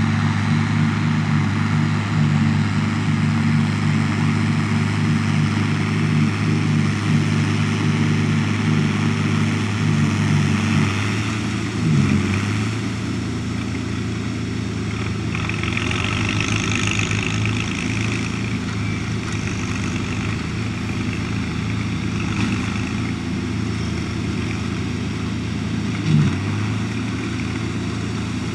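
Farm tractor diesel engines running steadily during silage work. About twelve seconds in the note changes and gets slightly quieter, with a brief louder knock near the end.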